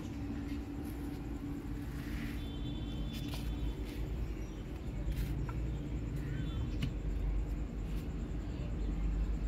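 A few faint, short, high-pitched mews from small kittens over a steady low background rumble.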